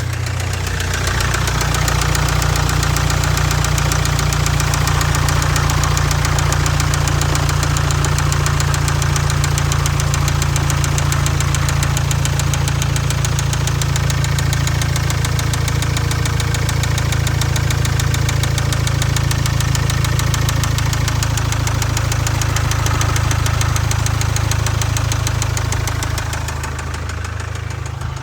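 Jaguar Land Rover Ingenium engine running with a rapid, steady knock, louder from a couple of seconds in and dropping back near the end: rod knock from a spun connecting-rod bearing.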